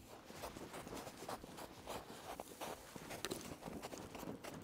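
Boots crunching and scuffing in snow, with the rustle of the paragliding harness and wing, during a launch run down a snowy slope; faint and irregular.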